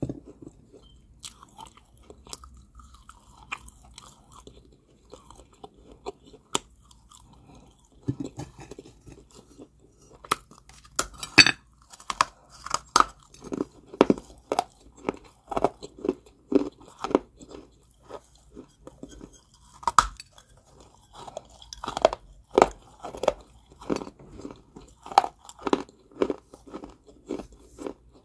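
A person biting and chewing crunchy balls of Georgia White clay with sharp crunches. The crunches are sparse for the first several seconds, then come thick and steady from about ten seconds in.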